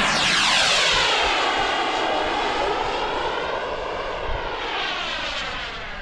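Kingtech K45G4+ model jet turbine of an RC jet making a low fast pass: a loud rushing jet whine that sweeps past and drops in pitch right at the start, then fades slowly as the jet flies away. Gusts of wind rumble on the microphone underneath.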